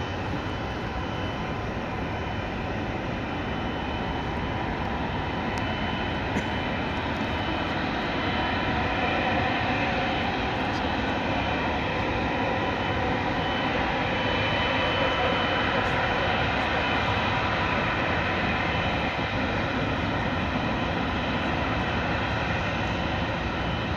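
Jet engines of a twin-engine wide-body airliner running on the runway: a steady roar with a thin high whine, growing slowly louder.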